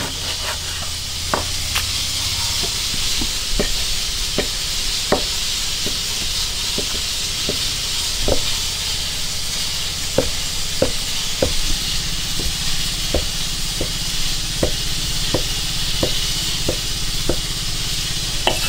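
Cleaver slicing through ham sausages and knocking on a thick wooden chopping block, about one and a half chops a second, over a steady hiss.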